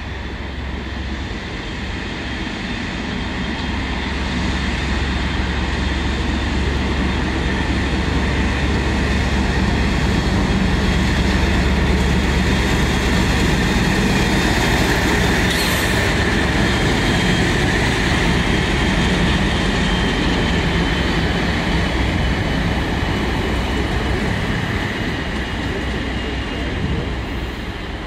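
Class 56 diesel-electric freight locomotive passing at speed with a train of engineering wagons. Its engine drone and wheel noise swell as it approaches, peak as it passes about halfway through, then fade as the wagons roll away.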